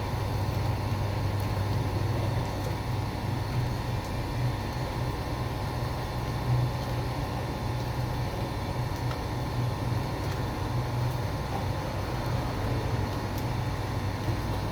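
Steady low rumble of running bakery equipment, with a faint hum above it, unchanging throughout.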